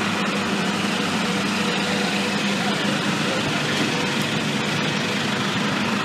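Fire truck's diesel engine idling steadily, a constant low hum with no revving, with faint voices in the background.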